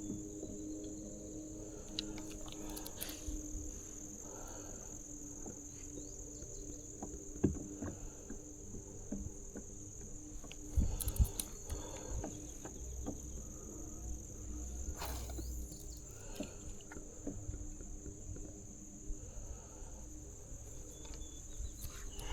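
Steady high-pitched chorus of insects, with a few brief knocks, the loudest about eleven seconds in.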